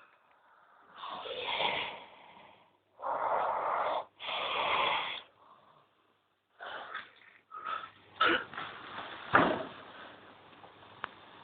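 A sleeping person snoring: three loud, noisy snoring breaths in the first five seconds, then softer rustling broken by a few sharp clicks.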